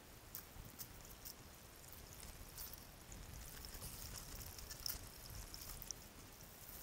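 Faint water pouring and trickling off a small plastic gold-prospecting sluice box into a bucket as it is tipped during cleanup, with scattered light ticks and taps.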